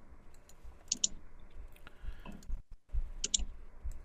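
Computer mouse clicking: a few scattered sharp clicks, with quick double clicks about a second in and again about three seconds in.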